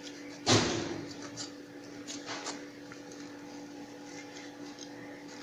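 A knife cutting into a raw jackfruit's rind, with a sudden loud scrape about half a second in that fades over half a second. A few faint clicks and rustles follow over a steady low hum.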